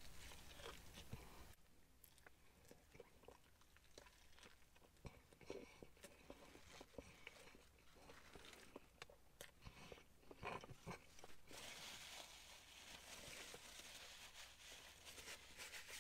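Faint, close chewing of a crispy fried-chicken and bacon burger (a doubled McCrispy Bacon Deluxe), with small crunches and mouth clicks. Near the end comes a soft rustle of a paper napkin.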